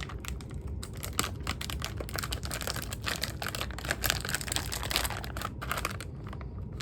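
Plastic snack bag crinkling as it is handled and opened, a dense run of crackles that thins out near the end.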